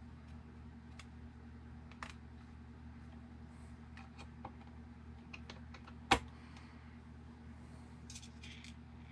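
Light metallic clicks and taps from small hand work: a hex driver turning a grub screw in an RC buggy's shock mount, and small parts picked from an aluminium parts tray near the end. One sharp knock, much louder than the rest, comes about six seconds in.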